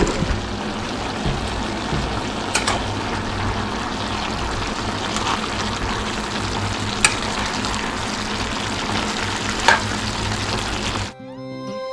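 Kalabasa (squash) sizzling in a frying pan, a steady hiss with four sharp taps spread through it. Music comes in just before the end.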